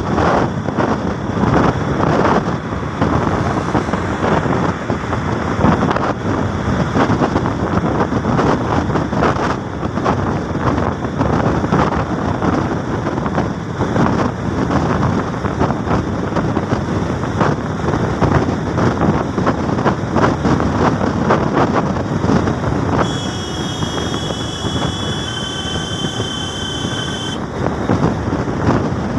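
Wind buffeting the microphone on a moving vehicle, over a steady rush of road and engine noise at cruising speed. Near the end, a cluster of steady high whistling tones sounds for about four seconds, changing pitch partway through.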